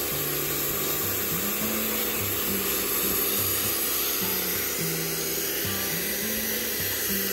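Pressure washer spraying a jet of water onto seat belt webbing: a steady, even hiss. Background music with low notes plays underneath.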